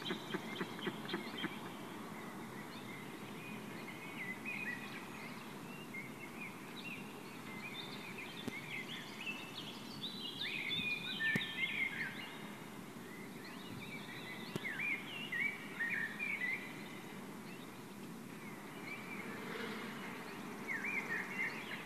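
White-tailed eagle chick calling: thin, high chirping notes in irregular bursts, busiest around the middle and again near the end, over a steady low background rush.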